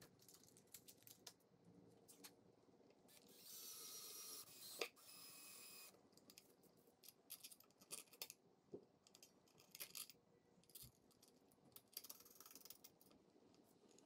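Quiet clicks and clinks of small metal hardware being handled and threaded into a wooden post, with two brief whirring bursts about four and five seconds in.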